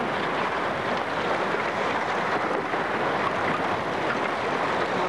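Steady rushing noise of wind buffeting the microphone, even and unbroken.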